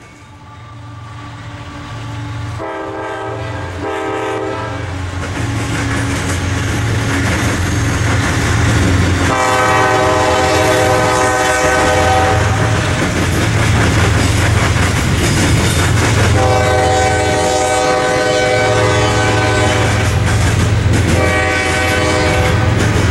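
CSX freight train passing: the locomotives' diesel engines rumble, growing louder over the first several seconds, with wheels clattering on the rails. The lead locomotive's air horn sounds two short blasts about three seconds in, long blasts from about nine and sixteen seconds, and another near the end.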